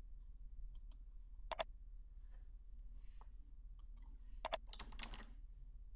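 Computer mouse clicks: two crisp press-and-release clicks about three seconds apart, with a few faint ticks between them and a brief soft rustle just after the second.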